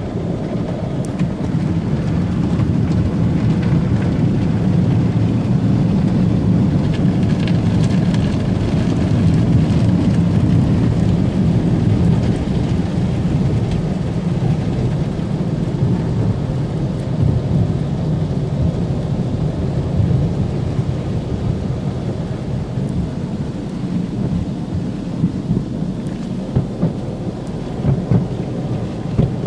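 Car wash water jets and brushes pounding on a car in a steady, heavy rumble, with a few sharp knocks near the end.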